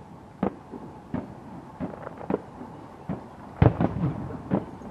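Aerial fireworks bursting: an irregular string of a dozen or so sharp bangs and pops, with the loudest cluster about three and a half seconds in.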